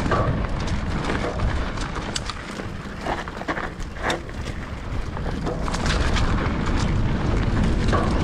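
Wind rumbling on the microphone of a mountain bike rider going downhill, with tyre noise on dirt and scattered clicks and knocks from the bike rattling over rough trail.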